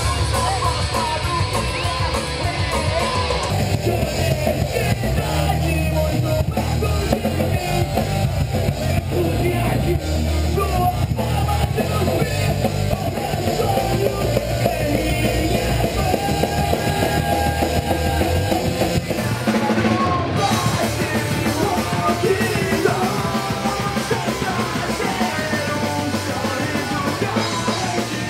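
Punk rock band playing live: distorted electric guitars, bass and drum kit with vocals. The music changes abruptly a few seconds in and again about twenty seconds in.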